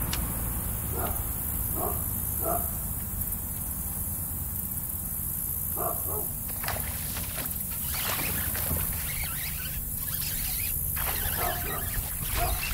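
A dog barking a few times in the distance, about a second in and again around six seconds, over a steady low rumble. In the later half come irregular scratchy noises.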